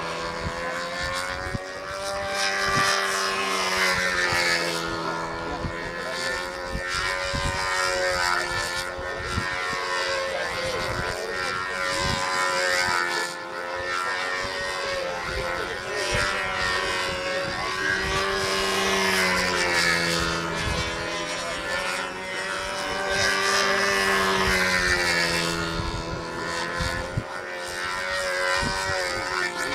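A control-line stunt model airplane's small engine and propeller running at a steady high speed, its pitch wavering up and down every few seconds as the plane flies its manoeuvres around the pilot.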